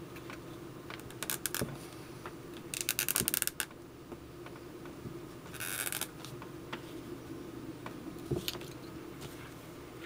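Small metal hardware clinking and rattling as a riveted leather sheath and a pair of pliers are handled: a few short bursts of rapid clicks, the longest about three seconds in, over a steady low hum.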